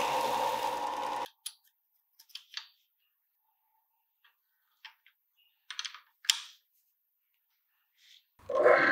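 A belt grinder running with a steel knife blank, made from an old file, held against the belt, cutting off abruptly about a second in. Then a few sharp metal clicks and taps from a chuck key tightening a twist drill bit in a drill press chuck, the loudest one just past the middle, and near the end the drill press motor starts up and runs steadily.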